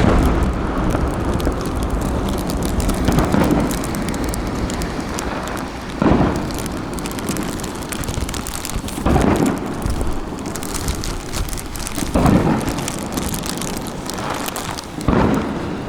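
Aerial firework shells bursting with deep booms about every three seconds, each trailing off in a rumble, over a steady rushing noise.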